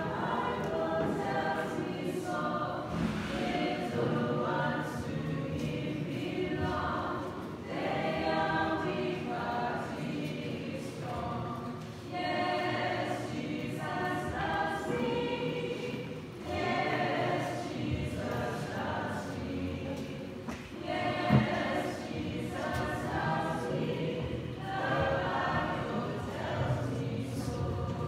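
Church congregation singing a hymn together, in phrases a few seconds long. A brief thump about 21 seconds in.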